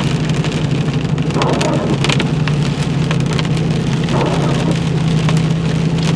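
Heavy rain falling on a moving vehicle, heard from inside, over the steady low hum of its engine as it drives.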